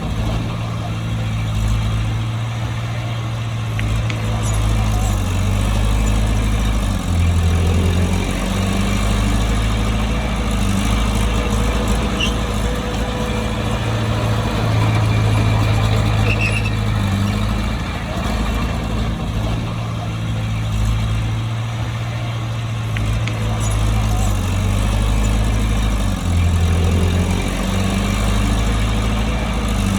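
Heavy diesel engine of a bulldozer running steadily under working load. Its note drops briefly about seven seconds in and again near the end.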